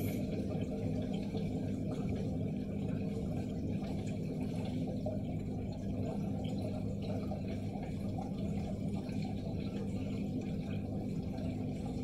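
Bosch washing machine running: a steady low hum with water sounds.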